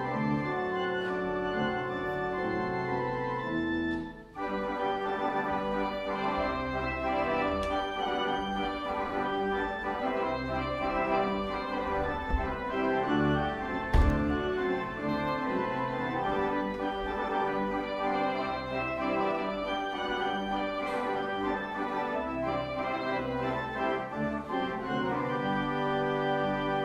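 Organ playing slow, sustained chords that change every second or two, with a short break in the chords about four seconds in. A single knock sounds about halfway through.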